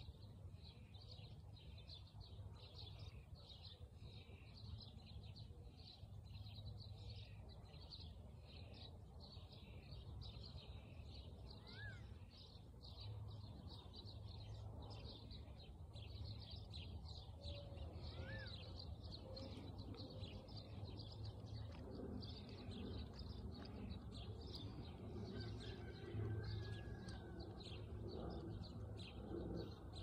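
Many small birds chirping together, a dense, steady chatter of short high chirps, with a few brief whistled notes now and then over a low steady rumble.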